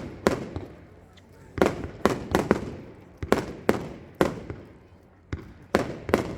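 Fireworks display: about ten shells bursting at irregular intervals, each a sharp bang followed by a dying echo.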